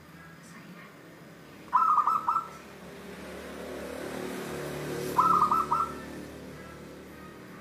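Zebra dove (perkutut) cooing: two short phrases of a few quick notes each, about three and a half seconds apart. A low rumble swells and fades in the background between them.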